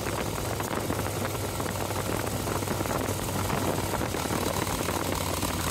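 Harley-Davidson V-twin engine running steadily as the motorcycle cruises, with a low even hum under rushing wind noise on the microphone.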